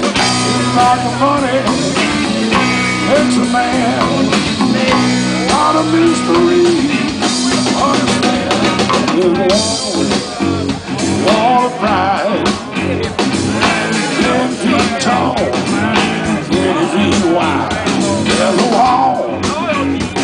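Live blues-rock band playing an instrumental passage: electric guitars and a drum kit, with a lead guitar line of bending, wavering notes over the band.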